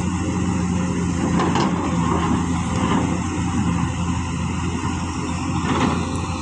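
Heavy construction machinery's diesel engine running steadily, with a few faint knocks.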